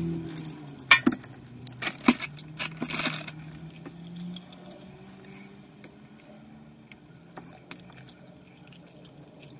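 Small metal cable gland parts clinking and rattling as they are handled and set down, with several sharp clinks in the first three seconds or so, then only faint scattered ticks.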